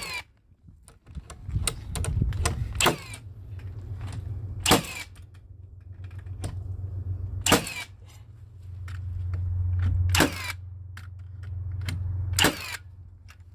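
A series of sharp clicks and knocks, irregular and a few seconds apart, over a low steady rumble that swells in the second half.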